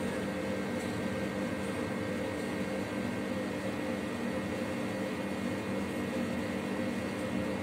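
Steady background hum and hiss, a few constant tones over even noise with no strokes or clicks: room tone.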